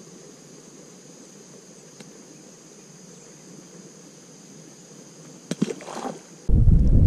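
Steady high-pitched insect chorus of summer. Near the end come a few sharp knocks, and then a sudden loud low rushing noise cuts in as the insect sound stops.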